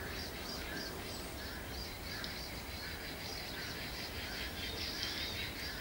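Birds calling in a dense run of short, high chirps over steady low background noise.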